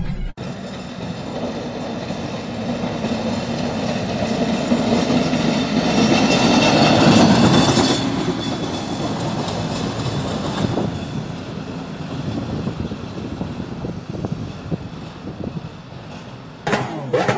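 Tractor-mounted snow blower running and throwing snow, a steady rushing, rumbling noise that is loudest about six to eight seconds in and then carries on more faintly. Music comes in just before the end.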